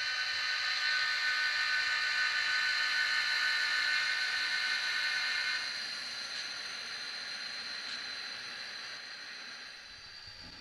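Two model diesel locomotives running along the track, a steady whir with several high whining tones that drops off after about halfway.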